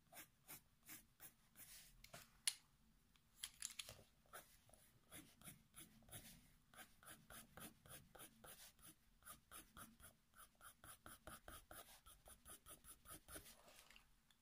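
Faber-Castell Polychromos coloured pencil scratching on paper in short, quick hatching strokes, about three a second and faint, with one sharper tap about two and a half seconds in.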